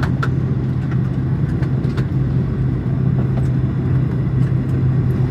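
Steady cabin hum of a parked Boeing 737-900 airliner, with a strong low tone, and light clicks and knocks scattered through it.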